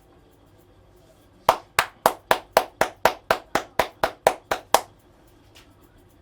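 Rapid percussive hand strikes of an Indian head massage: about fourteen sharp claps at roughly four a second, starting about a second and a half in and lasting a little over three seconds.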